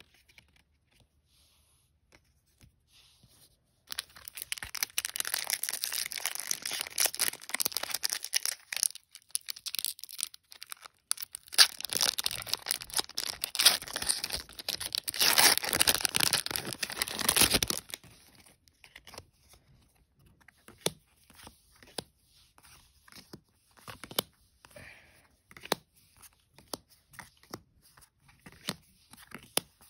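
A foil Magic: The Gathering Commander Legends booster pack wrapper being torn open and crinkled, loud crackling starting about four seconds in and stopping about eighteen seconds in. After that come scattered light clicks of the trading cards being slid and handled.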